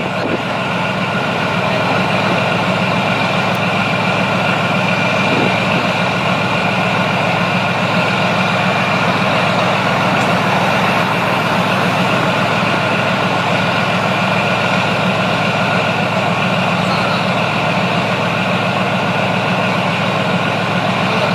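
Leopard 2SG main battle tank's V12 diesel engine idling steadily, with a steady high whine over the low engine note.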